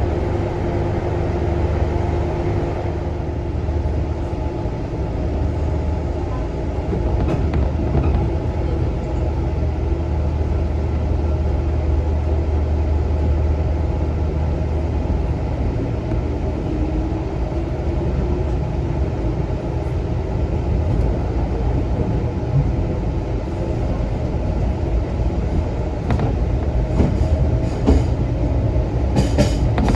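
JR Kyushu KiHa 66/67 diesel railcar set running its diesel engines with a steady low drone as it pulls out beside the platform. The drone eases after about fifteen seconds as the train moves away.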